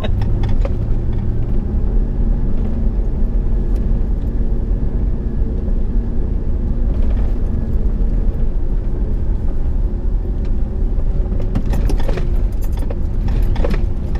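Dodge Ram Power Wagon's Hemi V8 pulling steadily up a rough gravel trail, heard from inside the cab, with a constant tyre-and-road rumble. A few sharp rattles and knocks near the end.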